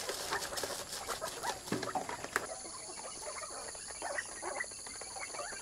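A small flock of quail calling softly in short chirps and pecking and scratching, with feed grains pattering into a plastic feeder in the first couple of seconds.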